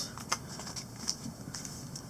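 Light handling of trading-card packs: a couple of soft taps near the start, then faint rustle and room hiss.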